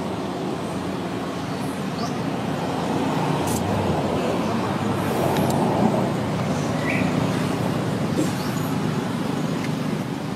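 Road traffic: motor vehicle engine and tyre noise that swells a few seconds in as a vehicle passes, with a few short faint high squeaks over it.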